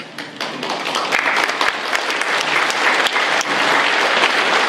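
A large audience applauding, many hands clapping. The clapping builds over the first second, then holds steady.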